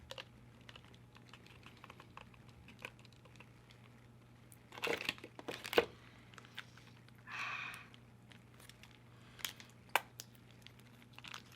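Close-miked eating sounds: soft mouth clicks and chewing, with a cluster of louder crackles about five seconds in and a short paper-like crinkle a little later.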